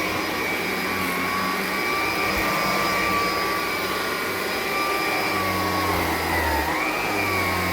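Electrolux Discovery 3 (model 1572E) upright vacuum cleaner running steadily on carpet, a high motor whine over airflow hiss, its pitch dipping briefly and recovering near the end.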